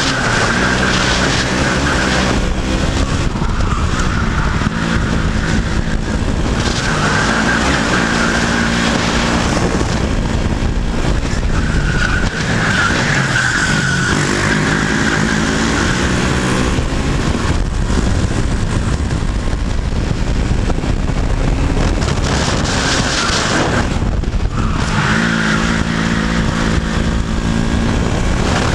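KZ shifter kart's 125cc two-stroke engine at racing speed, its revs rising and falling again and again through gear changes and corners.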